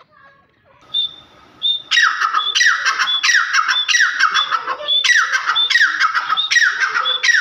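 Grey francolin (teetar) calling: a couple of short high notes, then from about two seconds in its loud, harsh call phrase repeated about twice a second.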